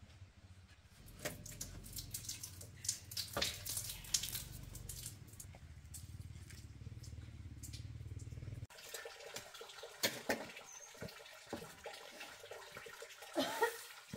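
Water splashing and trickling, with scattered sharp clicks and knocks; the sound changes abruptly about two-thirds of the way through, losing its low rumble.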